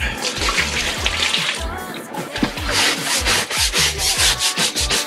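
A floor being scrubbed by hand, in quick back-and-forth rubbing strokes that settle into an even rhythm from about halfway through.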